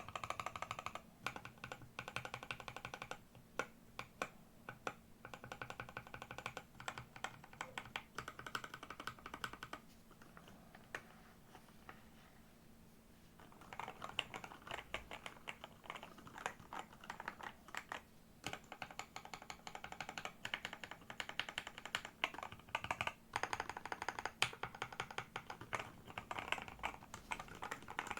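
Typing on a Redox split mechanical keyboard with lubed Gateron G Pro Red 45 gf linear switches and XDA keycaps: a fast run of key presses, easing to a few scattered strokes for a few seconds in the middle, then fast again.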